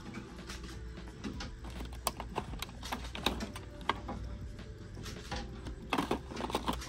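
Plastic gel-polish boxes clicking and clattering against an acrylic display rack as they are handled and pulled from the shelf, with a run of sharp clicks a couple of seconds in and another near the end, over a steady low hum.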